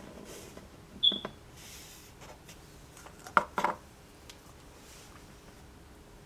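Handling noises as small objects are moved about on a table: a light knock about a second in with a brief squeak at its start, then two quick knocks about three and a half seconds in.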